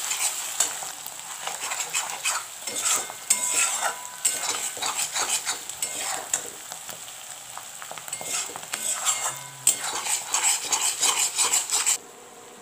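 Spiced masala paste frying in mustard oil in a metal kadai: it sizzles and spatters while a steel spatula stirs and scrapes it around the pan. The masala is being fried until the oil separates. The sound cuts off abruptly near the end.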